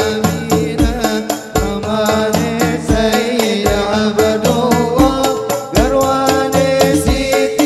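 Two male voices singing Arabic sholawat through microphones, accompanied by hadroh banjari frame drums with a steady beat of deep bass-drum strokes.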